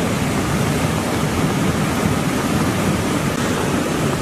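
The Beas river in flash flood: a steady, loud rush of fast, muddy floodwater.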